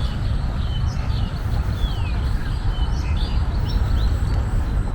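Birds chirping, with short whistled notes and a falling whistle about two seconds in, over a steady low rumble.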